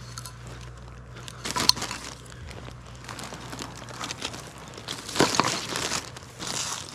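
Plastic trash bag crinkling and rustling in gloved hands as spent shotgun shells are dropped into it, with a sharp click about a second and a half in and louder rustles near the end.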